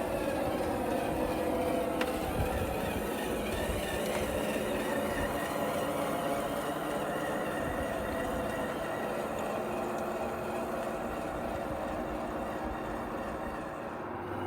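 DXR2 RC bulldozer running, a steady mechanical whir made of several held tones over a rough low rumble, with a faint tick about two seconds in.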